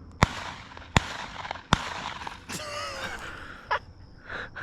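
Three shotgun shots fired at a passing dove, evenly spaced about three-quarters of a second apart, each with a short echoing tail.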